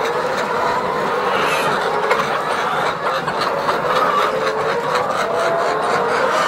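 A large flock of laying hens clucking and calling over one another in a steady din, with many drawn-out wavering calls overlapping.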